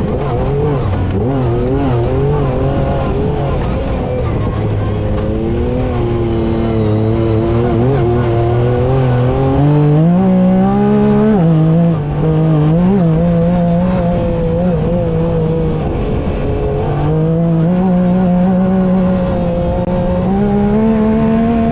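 Yamaha YXZ side-by-side's three-cylinder engine running on the move, its pitch rising and falling with the throttle. It climbs to its highest about halfway through, drops suddenly, then rises again near the end.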